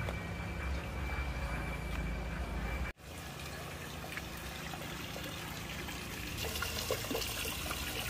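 Water pouring from a pipe into a pond, a steady splashing stream that grows brighter near the end. It starts after a sudden break about three seconds in; before that there is a low rumble with a thin steady high tone.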